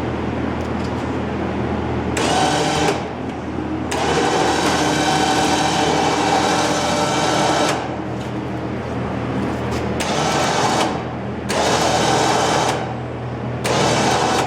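Electric hoist motor of a home-built elevator running in five short starts and stops, one of them nearly four seconds long, as the car is jogged upward. A steady low hum sits underneath throughout.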